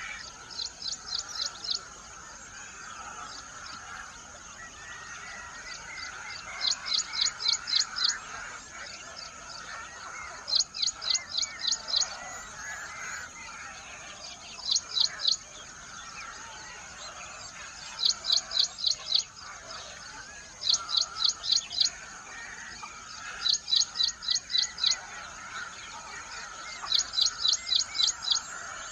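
A bird repeating a quick series of five to seven sharp, high chirps, one burst every two to four seconds, over steady background noise.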